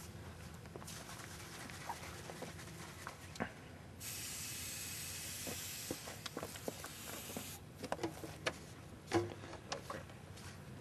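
Steady hiss of an aerosol can spraying propellant into a potato cannon's chamber, starting about four seconds in and cutting off sharply about three and a half seconds later. Around it are scattered light knocks and clicks from the plastic pipe being handled, the sharpest one near the end.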